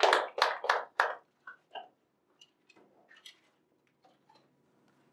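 Small audience clapping, dying away about a second in. Then a few faint scattered taps and rustles as papers and a folder are handled.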